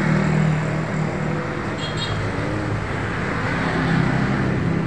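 Street traffic: a steady engine hum and road noise from cars and motorbikes going by.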